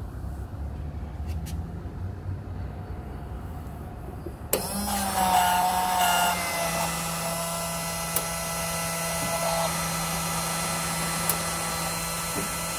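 Godrej coffee vending machine dispensing: about four and a half seconds in, its mixer motor and pump start suddenly and run with a steady whirring hum, then stop near the end. Before that, only a low steady rumble.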